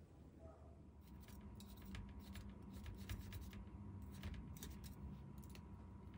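Light scraping and scattered clicks of a small knife blade against a stainless steel ring mold as it is run around the inside to loosen a baked potato duchesse, over a low steady hum that starts about a second in.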